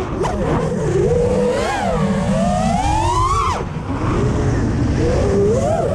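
FPV quadcopter's brushless motors whining, the pitch rising and falling with the throttle, dropping sharply about three and a half seconds in and climbing again near the end, with a low rushing noise underneath.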